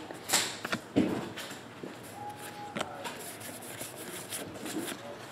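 Trading cards being handled and sorted: scattered soft clicks and light rustles of cards and packs.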